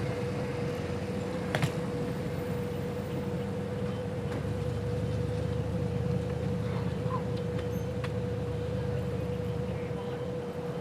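Car driving, heard from inside: a steady low engine and road rumble with a faint steady whine, and a single click about a second and a half in.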